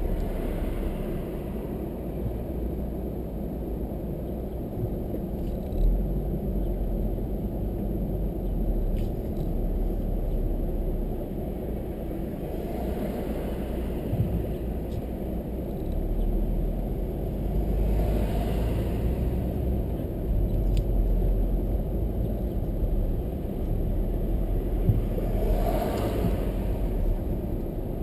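A car being driven on a road: steady engine and tyre rumble. The noise swells briefly a few times, near the start, about halfway through and near the end.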